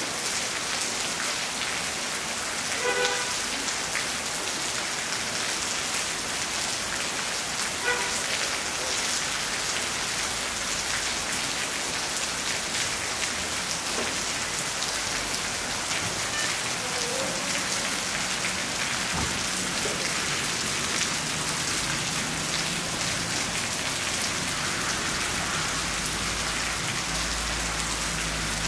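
Steady rain falling on rooftops and a wet street, a dense even hiss. Two short pitched calls, a few seconds apart, cut through near the start.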